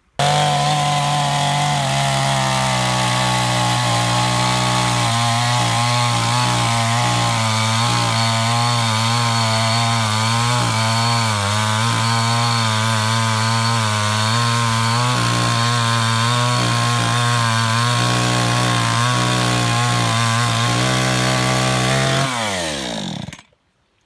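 Petrol chainsaw running at high revs while cutting through a log, its note wavering as the chain bites under load. Near the end the throttle is released and the engine note falls away.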